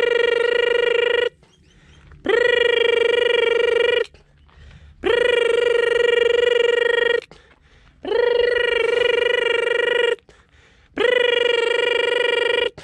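A loud, steady pitched tone held about two seconds at a time, each one starting with a quick upward slide, repeated five times with short silent gaps between.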